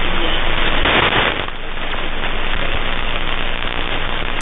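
Shortwave receiver static: hiss and crackle of band noise from a KiwiSDR web receiver in lower sideband, tuned across the 120 m band between stations. About a second in there is a brief louder surge of noise.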